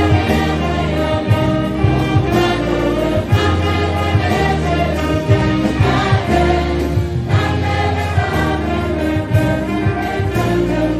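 Gospel choir singing together into microphones, with deep bass notes holding and changing under the voices.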